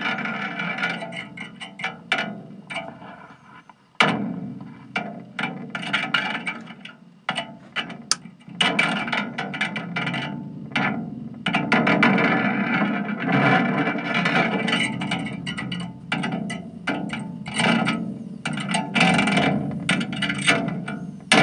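Contact-miked aluminium shaving being struck and rattled, played through an RMA Mudlark fuzz pedal: irregular distorted clangs and buzzing rattles, each sharp hit dying away, with denser stretches of fuzzed noise in the second half.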